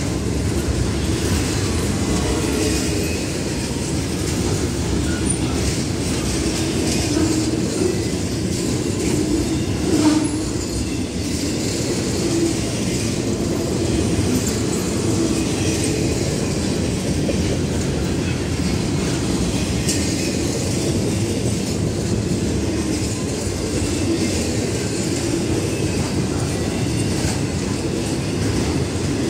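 Loaded intermodal freight cars (container well cars and trailer flatcars) rolling past close by, a steady rolling noise of steel wheels on rail. A single louder knock comes about ten seconds in.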